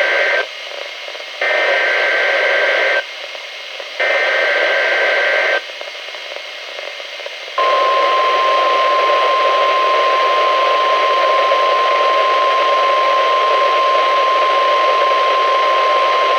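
Emergency Alert System signal on a NOAA Weather Radio, played by a Reecom R-1630 weather radio over heavy static from poor reception. It holds the tail of one SAME digital header burst, then two more raspy two-tone data bursts of about a second and a half each, about a second apart. About seven and a half seconds in, a single steady high alert tone (the 1050 Hz NWR warning tone) starts and holds.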